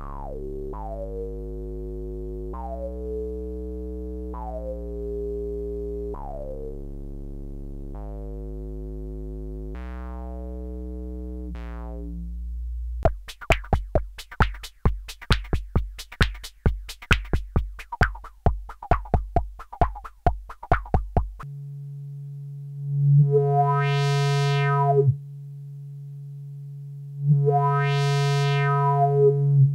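Modular synthesizer sound through a Skull & Circuits VCF-1 vactrol filter. A repeating bass line comes first, each note's tone closing from bright to dull. About 13 seconds in it changes to fast clicky percussive pulses, and for the last eight seconds a steady low drone twice swells bright and buzzy as the filter is opened.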